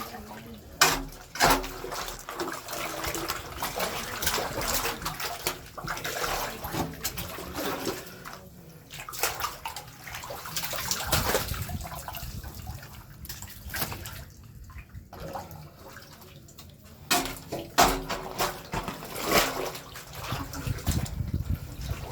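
Wastewater splashing and sloshing in a blocked manhole being cleaned, in irregular surges with scattered sharp knocks and splashes.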